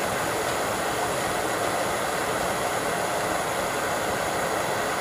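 Fire sound effect: a flame burning with a steady rushing noise that holds at an even level throughout.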